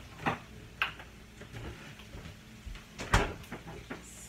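A few scattered knocks and clunks of kitchen handling, the loudest about three seconds in.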